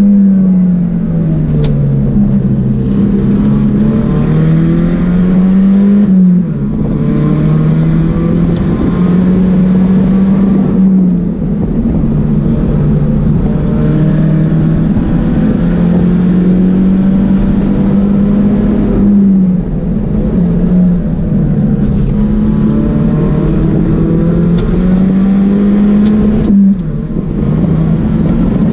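Pontiac Solstice race car's engine heard from inside the cabin, driven hard on track: the engine note climbs and falls in pitch again and again with acceleration and slowing, with short sudden breaks about six, eleven, nineteen and twenty-six seconds in.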